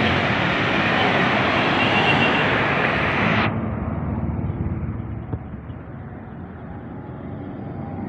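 Street traffic: motorcycles and cars passing on the road, louder in the first half and then fading.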